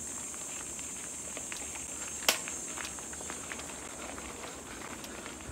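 Mountain bike rolling along a dirt trail: a low rumble with scattered small crackles and clicks of tyres over gravel and twigs, and one sharp click about two seconds in.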